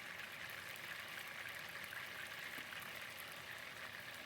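Oil heating in a frying pan, sizzling faintly with a steady, crackly hiss.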